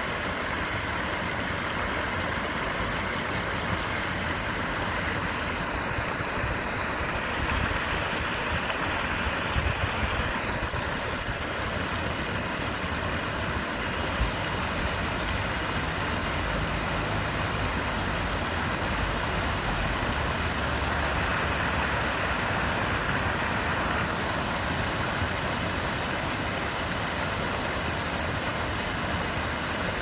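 River water rushing through white-water rapids: a steady, even rushing noise with a low rumble underneath.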